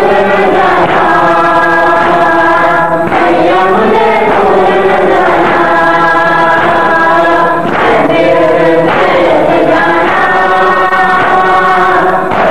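Many voices chanting together in unison, a devotional mourning chant (noha), in long held phrases with short breaks about every four and a half seconds.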